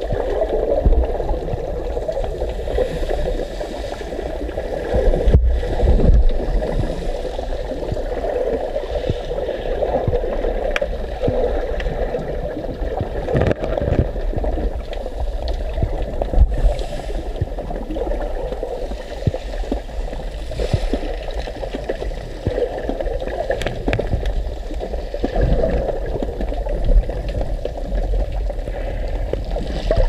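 Muffled water noise picked up by a camera underwater, a steady gurgling wash with a low rumble and a few sharp knocks.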